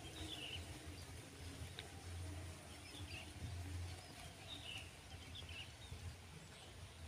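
Wind buffeting the microphone as a low rumble that swells and eases, with a few faint short bird chirps.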